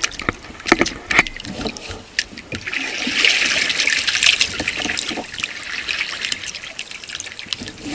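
Water trickling and splashing as a kayak paddle dips and drips, with a few sharp clicks in the first second or so.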